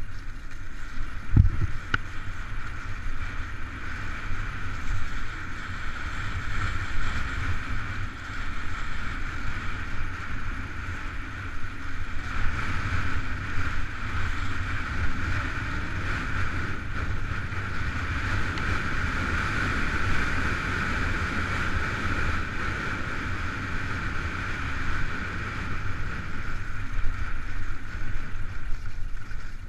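Head alpine skis sliding over snow with a steady hiss, and wind buffeting the body-mounted camera's microphone with a low rumble. A single thump comes about a second and a half in.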